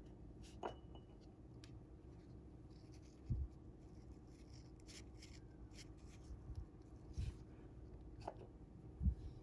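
Faint rustling and small clicks of fingers handling a fishing hook tied on monofilament line, with three soft low thumps, the last near the end the loudest, over a low steady hum.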